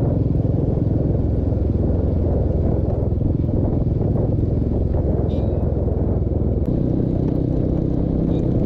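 Royal Enfield motorcycle's single-cylinder engine running steadily under the rider at road speed, a low rumble; its note shifts slightly a little under seven seconds in.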